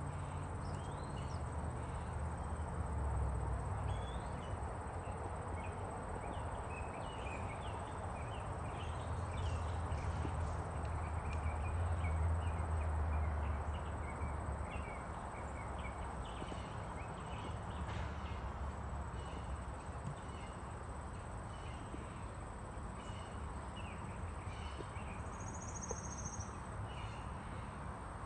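Outdoor backyard birdsong: many short chirps and calls from several small birds, scattered through the whole stretch, with one brief higher whistle near the end, over a steady hiss and a low rumble that swells for a few seconds partway through.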